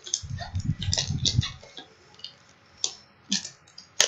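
Hands handling a cardboard shipping box and a small tool: a cluster of low knocks and rustling for about the first second and a half, then a few separate sharp clicks, the sharpest near the end.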